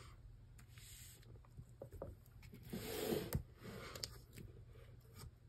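Clear plastic binder pages rustling and sliding as a ring binder full of photocards is opened and its pages are handled, louder about three seconds in with a sharp click, and a few soft clicks elsewhere.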